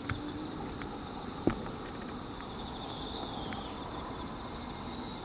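Insects chirring steadily in a high, even drone with a faint regular pulse, and one sharp click about a second and a half in.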